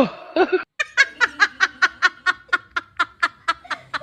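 A person laughing in a rapid run of short, breathy pulses, about six a second, after a brief sound at the start.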